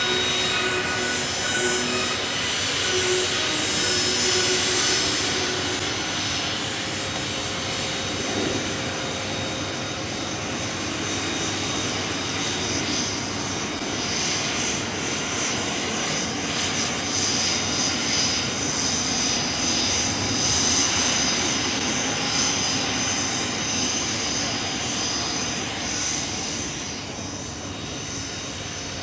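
Twin turbofan engines of a U-125A search-and-rescue jet running as it taxis, a steady jet roar with a high whine. The whine grows stronger about halfway through, and the sound eases a little near the end.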